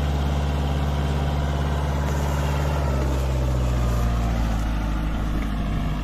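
Kubota MU5501 tractor's four-cylinder diesel engine running steadily as it hauls a fully loaded trailer of soil. The engine note drops in pitch about halfway through and gets a little quieter near the end.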